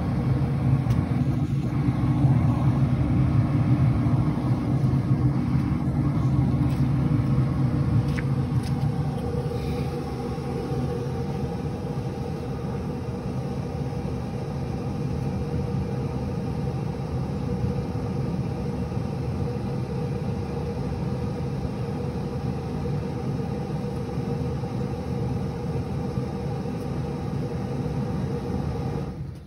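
Cabela's Pro Series pellet grill running with a steady low rumble, a little quieter from about ten seconds in. It cuts off suddenly near the end as the controller errors out and the grill shuts down.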